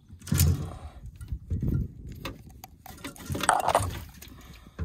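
Irregular clicks, knocks and rattles of a landing net and fishing gear being handled in a small boat as a netted carp is brought aboard, with two louder bumps about half a second in and near the three-and-a-half-second mark.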